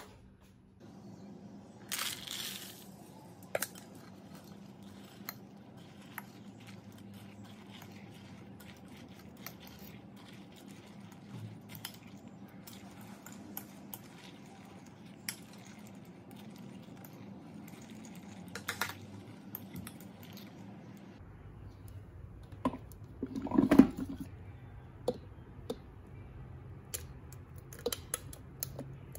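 Cuisinart ice cream maker's motor running with a steady low hum as it churns the mix, with scattered light clicks and knocks and a louder clatter about three-quarters of the way through.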